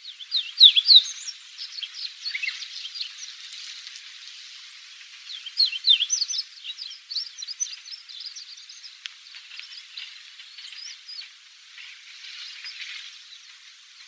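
Chestnut bunting subsong: a rapid, rambling twitter of short chirps and slurred notes. One burst comes about half a second in and a longer run from about five seconds in, with fainter notes scattered after.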